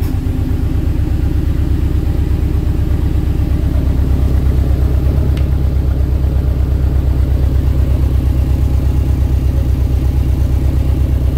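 Subaru WRX STi's turbocharged EJ257 flat-four idling through a newly fitted OBX stainless catback exhaust: a steady, even low pulsing. The owner suspects the exhaust is leaking at its poorly fitting flanges and slip joint.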